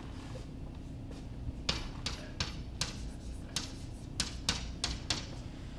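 Chalk writing on a blackboard: a quick, irregular run of short taps and scrapes as letters are chalked, beginning a couple of seconds in and stopping near the end.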